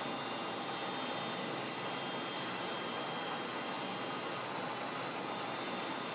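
Lathe running while boring out the thrust chamber of a graphite rocket engine: an even hiss with a faint, steady high whine.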